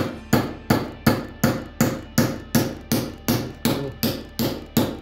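Hammer blows on a steel spoon blank lying over a hollow in a swage block held in a vise, dishing out the spoon's bowl. A steady run of quick strikes, nearly three a second, each with a short metallic ring.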